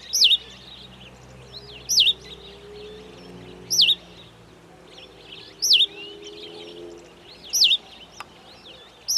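Cape sparrow calling: a short, swooping chirp dropping in pitch, repeated about every two seconds. Fainter chirps come in between.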